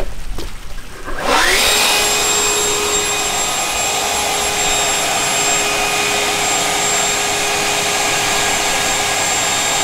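Kobalt electric leaf blower spinning up with a rising whine about a second in, then running steadily at full speed as it blows air through a corrugated drain pipe to flush it out.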